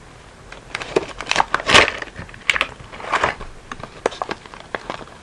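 Beyblade packaging being handled during unboxing: irregular plastic and cardboard crackles and clicks, loudest about two seconds in.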